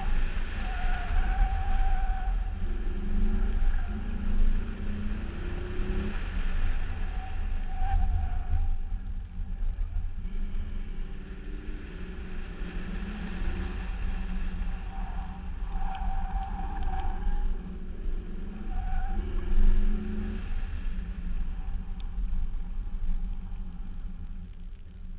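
Car engine revving up and down as it is driven hard through an autocross course, with heavy wind buffeting on an outside, fender-mounted microphone. A short, steady high squeal comes and goes several times, typical of tyres squealing through the corners. The engine sound drops off near the end.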